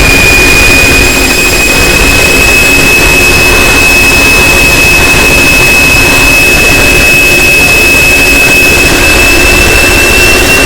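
Emergency Alert System-style alarm played extremely loud: a harsh, rushing noise filling the whole range, with one high whistle-like tone that slowly rises in pitch throughout.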